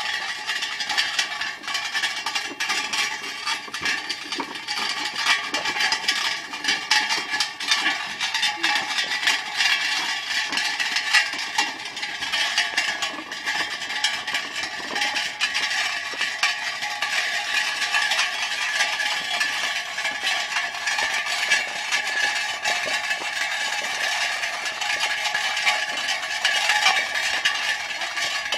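Ox-drawn cart rattling and clattering continuously as it is pulled along, with a steady ringing underneath.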